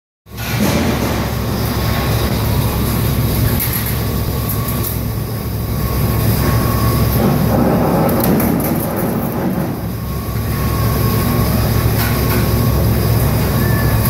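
200-ton Niagara mechanical punch press running on a factory floor: a loud, steady machine noise with a deep hum and a thin high whine that comes and goes, starting suddenly just after the beginning.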